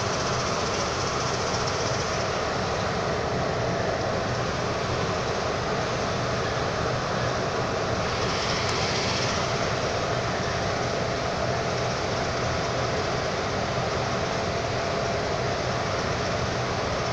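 Diesel locomotive engine running steadily: a constant loud drone with a faint steady whine over it and no change in pace.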